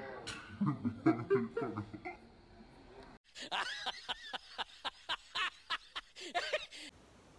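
Short bursts of laughing and snickering, then after a sudden cut a brighter run of repeated laughs, about three a second, that stops abruptly near the end.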